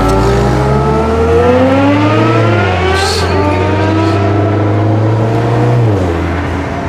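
Mini Cooper engine accelerating through the gears: its pitch climbs, drops at a gear change about three seconds in, climbs again, then falls away near the end as the car slows.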